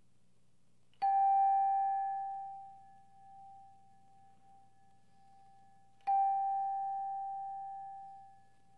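Chime struck twice, about five seconds apart, each strike the same single ringing note that fades away over a couple of seconds.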